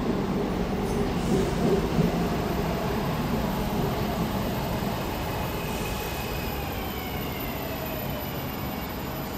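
SEPTA Market-Frankford Line M-4 subway-elevated train arriving at a platform, wheels rumbling on the rails as it slows. A faint falling whine comes in about halfway through as the train brakes toward a stop.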